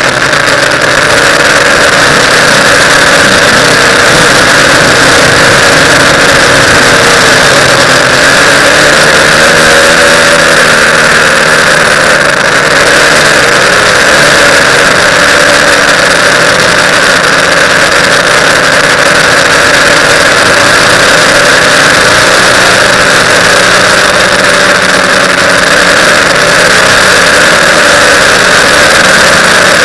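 TBS Discovery quadcopter's electric motors and propellers in flight, a loud steady whine whose pitch drifts up and down with the throttle.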